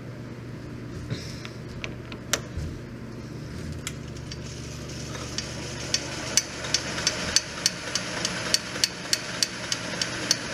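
Small metal lathe starting up, then a regular metallic banging of about three knocks a second from its link drive belt: the belt's metal studs strike the lathe's belt cover, which is not seated right. A few scattered clicks come before the banging starts.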